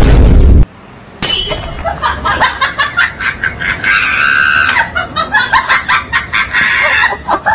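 A short, very loud burst of noise, then, from about a second in, a comic laughing sound effect made of many quick bursts of laughter.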